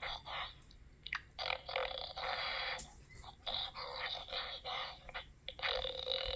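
Lion growl sound effects: rasping growls in bursts of about a second, three main ones with short pauses between them.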